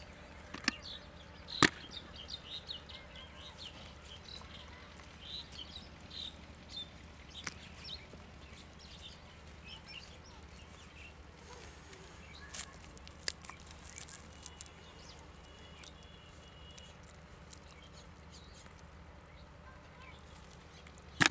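Bare hands digging and squelching in wet mud, with scattered small clicks and a few sharper ones. Birds chirp faintly in the background over a steady low hum.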